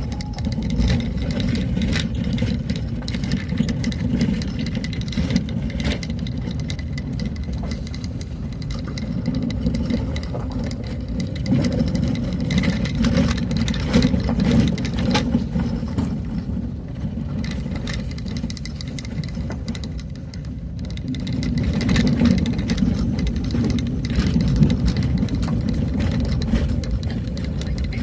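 Vehicle engine running while driving, with a steady low drone and frequent knocks and rattles throughout; it eases off briefly about 20 seconds in, then picks up again.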